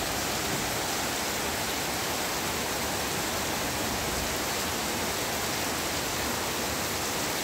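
Heavy rain pouring down steadily: a dense, even hiss that holds at the same level throughout.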